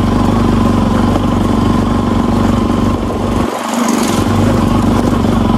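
Motorcycle engine running steadily at low speed over a rough gravel track. About three and a half seconds in, the engine note briefly drops away for about half a second with a short hiss, then picks back up.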